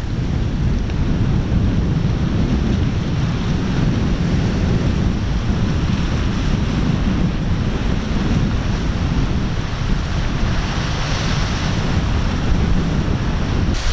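Wind buffeting the microphone over the steady rush of breaking surf, with a brighter hiss of surf washing in near the end.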